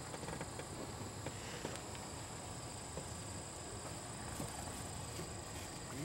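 Faint steady high chirring of insects, with soft scattered footfalls and rustling in grass underneath.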